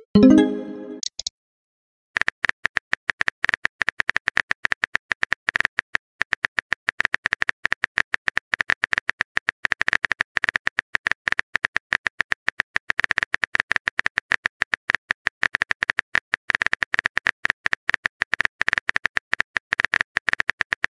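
Texting-app sound effects: a short tone as a message is sent at the start, then after a brief pause a fast, steady stream of simulated keyboard tapping clicks as a reply is typed out.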